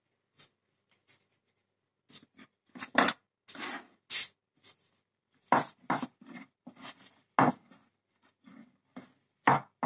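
Pastry dough being gathered and kneaded by hand and rolled out with a wooden rolling pin on a worktop. A run of irregular knocks, thuds and rubbing strokes starts about two seconds in.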